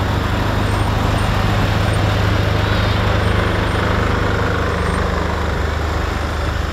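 Heavy diesel engines of a lorry tractor unit and following tractors rolling slowly past in a procession: a steady low drone.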